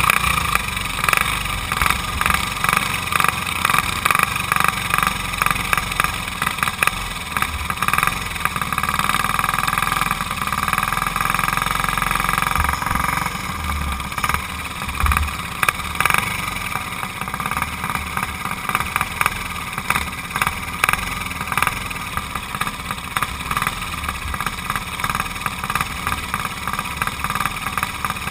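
Briggs & Stratton Raptor kart engine idling steadily while the kart sits still.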